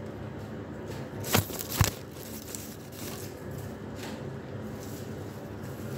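Backing liner being peeled off adhesive tape on a shelf edge, with two short sharp crackles close together about a second and a half in.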